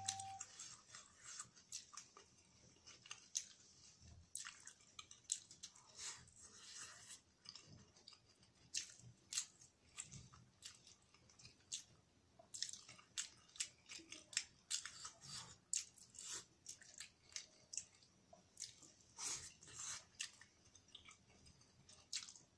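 Close-miked chewing as a person eats stir-fried potato and cabbage with rice: many short, soft wet mouth clicks and smacks at irregular intervals.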